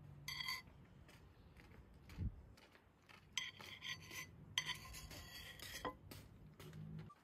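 Faint clinking and scraping of cutlery against dishes, in a few short ringing bursts, with a soft thud about two seconds in.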